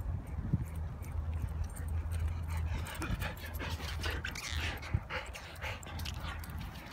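Dog panting close to the microphone, a run of quick breaths from about two and a half seconds in.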